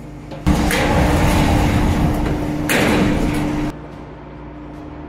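Spinning tool pressed against a rotating metal sheet on a large spinning lathe: a loud scraping rush that starts suddenly about half a second in, gets harsher for the last second, and cuts off abruptly after about three seconds. The lathe's steady hum runs underneath.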